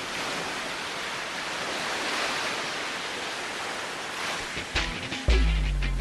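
A rushing noise like ocean surf swells up and holds in the background music track. Near the end, a few sharp hits come, and then the next song comes in with a heavy bass note.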